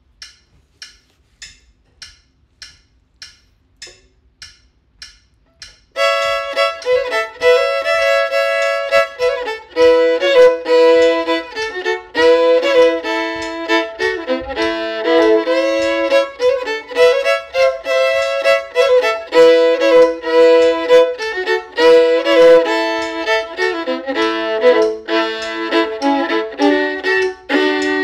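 Steady clicks about 100 a minute from a metronome, then a fiddle comes in about six seconds in, bowing a lively A-major old-time fiddle tune and often sounding two strings at once.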